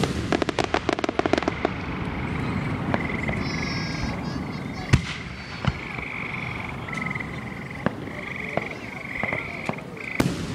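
Aerial fireworks: a firework bang followed by about a second and a half of rapid crackling from a crackle-star burst, then single booms about five, six, eight and ten seconds in. A steady high-pitched trilling chorus pulses in the background.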